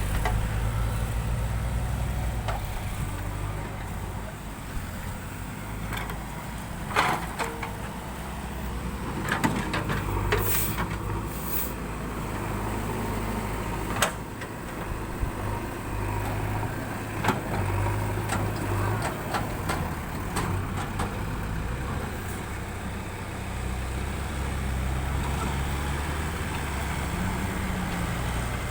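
Diesel engine of a JCB 3DX backhoe loader working, its revs rising and falling as it digs and loads, with several sharp metallic knocks along the way and a brief hiss about ten seconds in.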